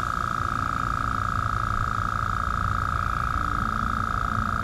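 Fortress 2-gallon ultra-quiet air compressor running while it inflates a tire: a steady, even hum with a rough, fluttering rumble underneath.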